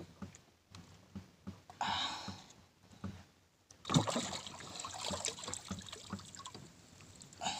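Water splashing and dripping as a large fighting fish is hauled out of the sea over the side of a small boat. A sharp knock comes about four seconds in, followed by scraping and clattering against the hull.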